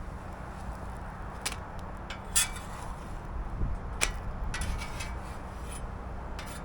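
A few short scrapes and clicks of a metal spatula against the steel griddle top, over a steady low background rumble.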